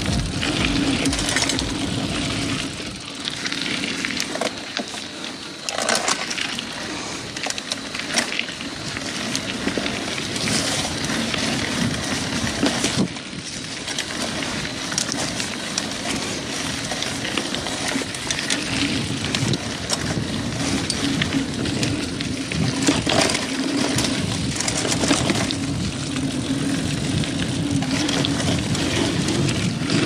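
2000 Klein Attitude Race mountain bike ridden over dirt singletrack: continuous tyre noise on the trail surface, with frequent knocks and rattles from the frame and chain as it rolls over rocks and roots.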